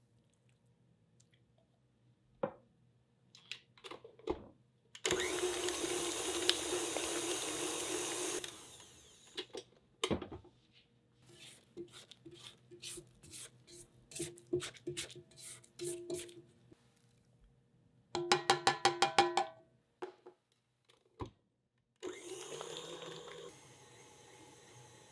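KitchenAid tilt-head stand mixer with a flat beater working stiff cookie dough in a steel bowl. The motor runs in several stretches, with scattered knocks of the beater and dough against the bowl and a quick run of regular thumps, about five a second.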